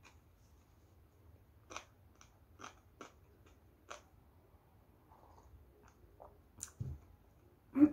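Close-up mouth sounds of a person eating: a few sharp chewing smacks and clicks, then a faint sip from a soup bowl, and a couple of soft knocks near the end, the last the loudest.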